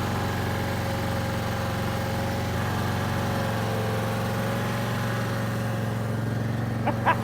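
Briggs & Stratton Vanguard V-twin engine of a Barreto 30-SG tracked stump grinder running steadily at high throttle, a low hum with a steady higher whine above it; the hum shifts slightly about three and a half seconds in.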